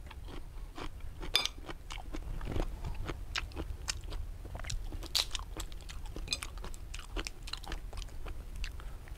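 Chewing and crunching on crab, with many irregular sharp crackles as crab shell is cracked and picked apart by hand. A steady low hum runs underneath.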